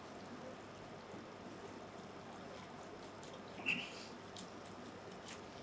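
Lemon half being twisted and pressed on a glass reamer juicer: faint squelching with juice trickling into the dish, and one short squeak about three and a half seconds in.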